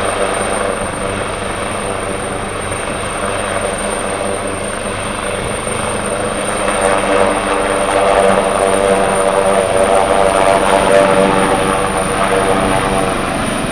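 Rescue helicopter's engines and rotor running on the ground, then growing louder from about halfway through as power comes up and it lifts off.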